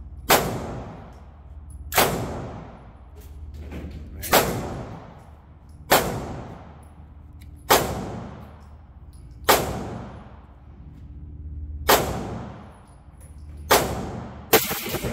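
Nine gunshots from a .50-calibre gun, fired one at a time about every two seconds, each followed by a long fading echo.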